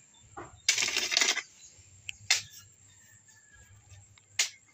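A hand hoe chopping into stony soil and roots while a small hole is dug: a longer scraping stroke about a second in, then single sharp strikes about two and a half and four and a half seconds in.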